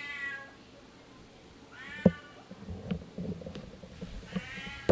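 Domestic cat meowing loudly three times, long drawn-out meows about two seconds apart. A sharp knock comes about two seconds in, with a few soft low thuds after it.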